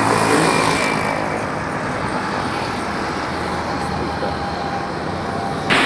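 Road traffic noise: a steady hum of passing cars and engines.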